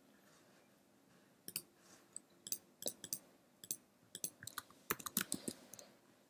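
Computer keyboard keystrokes typing a line of code: irregular clicks starting about a second and a half in, some in quick runs.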